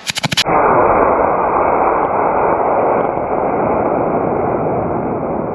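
E-class model rocket motor igniting with a quick run of crackles, then a loud steady rushing roar of thrust that begins to fade near the end.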